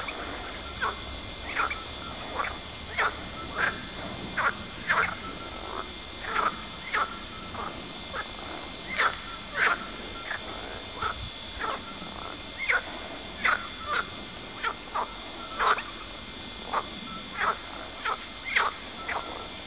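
Outdoor night chorus: frogs calling in short, repeated croaks, roughly one or two a second, over a steady high-pitched trill of insects.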